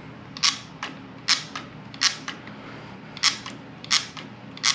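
Newly installed Kuryakyn Trigger clutch lever on a Harley-Davidson Electra Glide being pulled and released by hand, giving about eight sharp metal clicks, several in quick pairs. It is being checked that the lever moves freely on its pivot pin.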